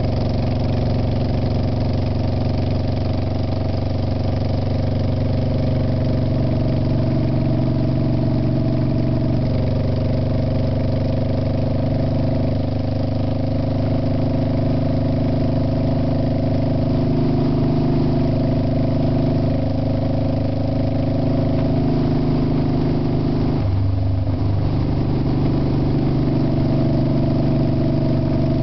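Engine of the camera's vehicle running steadily at road speed, with road and wind noise. About 24 seconds in the engine note dips briefly and shifts in pitch, like a gear change.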